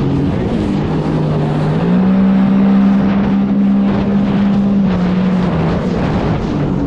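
Sea-Doo jet ski engine running under way over a steady rush of noise. The revs rise about two seconds in, hold, then ease back around five seconds.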